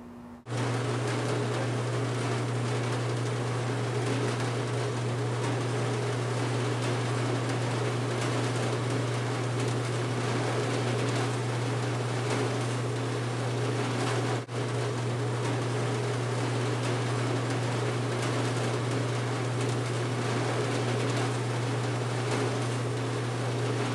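Steady hum and whir of a coil-fed sheet-metal machine running, starting abruptly just after the start, with a brief dropout about halfway through.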